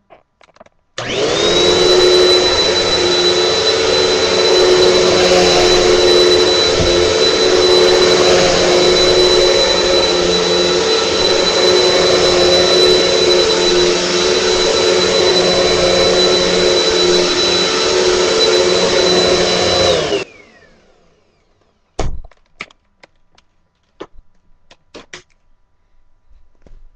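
Dirt Devil Dynamite cyclonic vacuum cleaner switched on about a second in and running steadily with a high motor whine for about nineteen seconds. It is then switched off, the whine falling as the motor spins down. A few sharp knocks follow near the end.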